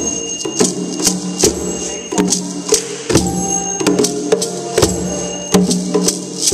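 Children's percussion ensemble playing a steady beat: djembe hand drums struck with the palms, with mallet-struck bar instruments ringing pitched notes over them.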